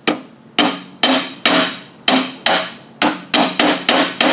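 Hammer tapping on a metal tube used as a driver, pressing a bearing raceway down into its bore in a metal jig bar: about eleven sharp, briefly ringing metal taps that come quicker toward the end.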